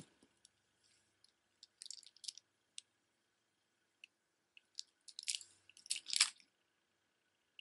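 Necklace of rolled-paper beads with small metal spacer beads clicking and rustling as it is handled. There are a few scattered light clicks about two seconds in, then a busier clatter about five to six seconds in as it is gathered up and set aside.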